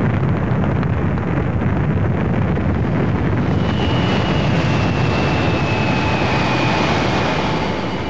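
Rocket sled's rocket motors firing in a loud, steady roar. About halfway in a thin whistling tone comes in and slowly falls in pitch as the hiss grows brighter.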